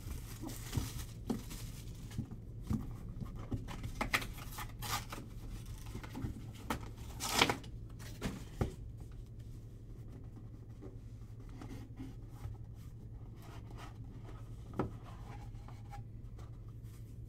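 Plastic shrink-wrap being torn and peeled off a cardboard trading-card hobby box: crinkling, short rasps and small knocks of the box being handled, the loudest rip about seven seconds in. After that only light handling of the cardboard box, over a steady low hum.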